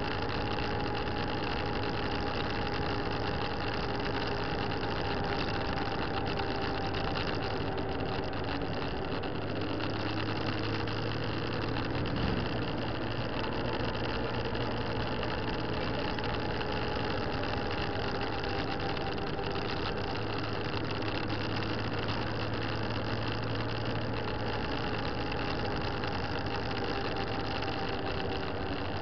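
Motorcycle engine running steadily while riding along at road speed, its pitch drifting slightly up and down with the throttle, under a steady rush of wind and road noise.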